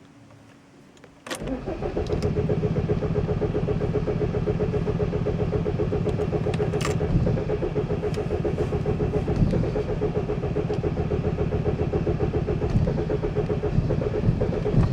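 Opel Vectra B 2.2 DTI diesel engine: a click about a second in as the start is tried, then a steady, rapid mechanical pulsing that goes on unchanged. This is a start attempt on a car whose problem is starting, with the VP44 injection pump suspected.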